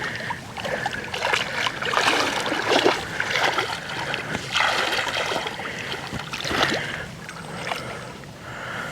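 Irregular rustling and splashing as someone moves through creek-side weeds and shallow water.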